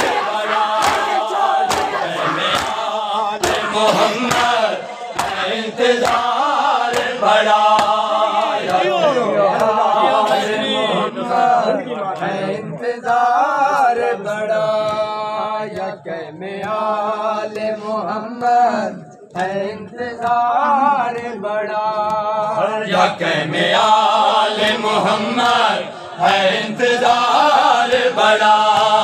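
Men's voices chanting a noha, a Shia lament, with the rhythmic slap of hands beating on bare chests (matam) keeping the beat, most regular in the first few seconds.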